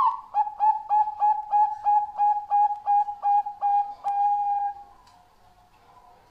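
Bangkok-strain zebra dove (perkutut) singing: a quick run of about a dozen short, even coos, about three a second, ending about four seconds in on one longer held note. Softer coos of other doves sound faintly behind it.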